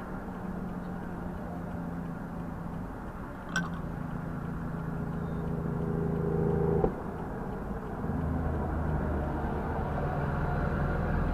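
Steady low vehicle hum of engines and road traffic, its pitch shifting as vehicles change, with a sharp click about three and a half seconds in and a short knock about seven seconds in.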